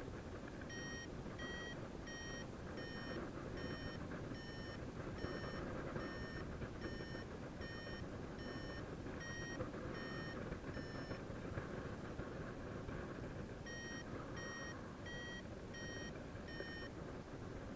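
Paragliding variometer beeping in rising air: short, high beeps, a little over one a second, which pause for a few seconds about eleven seconds in and then start again. The beeps are the sign that the glider is climbing. Steady wind rush on the microphone lies underneath.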